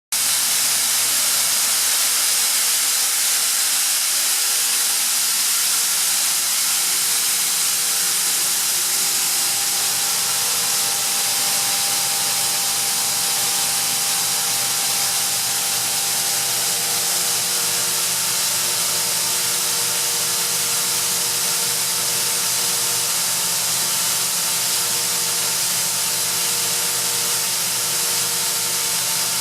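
Ingersoll Rand Nirvana 110 oil-flooded rotary screw air compressor running steadily: a loud, even hiss with a few steady tones in it that grow a little stronger partway through.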